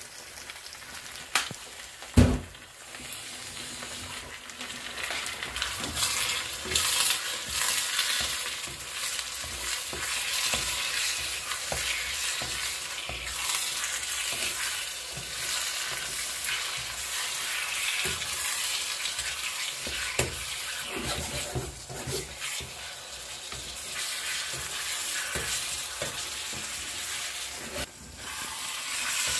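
Diced raw chicken breast sizzling in hot oil with fried onions in a small pan, just added and being stirred with a wooden spatula, with small scrapes and clicks throughout. A loud knock comes about two seconds in, and the sizzle grows louder over the first few seconds.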